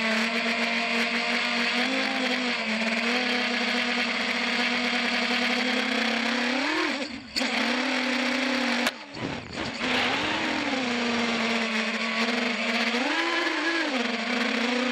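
Eachine Wizard X220 FPV quadcopter's brushless motors and propellers whining steadily, the pitch rising briefly with throttle punches about 2 s in, near the middle, and twice more toward the end. The whine cuts out briefly twice around the middle.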